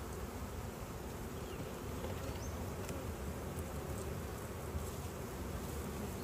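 Honey bee colony buzzing from an opened hive: a steady hum of many bees.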